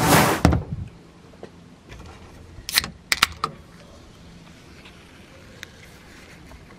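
A short, loud rush of noise at the very start, then an aluminium drink can being opened about three seconds in: a few sharp clicks of the pull tab and a brief hiss as the can vents.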